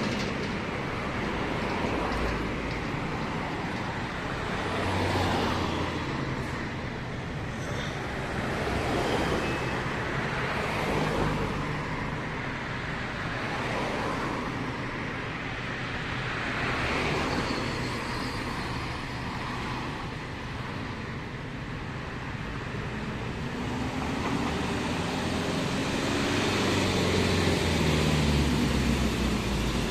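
Road traffic at a roundabout: cars passing one after another with tyre and engine noise swelling every few seconds, over the low running of a city bus engine. Near the end an engine note rises as a vehicle accelerates away.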